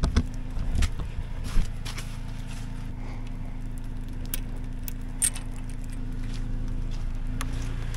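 Engine idling steadily with a low hum, while raindrops make scattered light ticks and taps.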